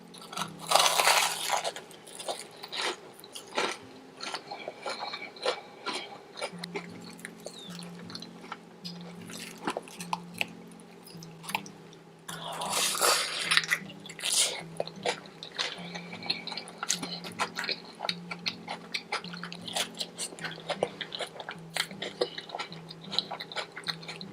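Close-miked crunchy eating: biting into and chewing Hot Cheeto–coated chicken, a steady stream of crisp crunches with louder bites about a second in and again around halfway.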